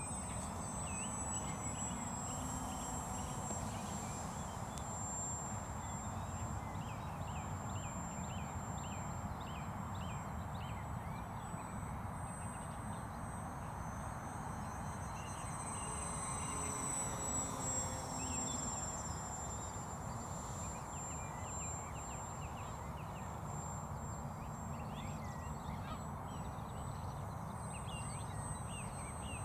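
Birds calling over and over in short chirps, over a steady low rumble of outdoor background noise, with a thin, steady high whine throughout.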